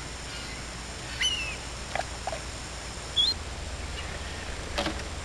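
Gulls calling: a gliding call about a second in and a short, higher call about three seconds in, over a faint steady low rumble.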